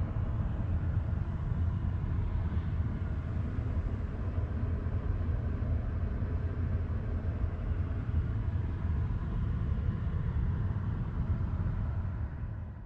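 Steady low rumble of tyre and road noise from a 2023 Volkswagen ID.Buzz electric van driving on winter tyres. It fades out near the end.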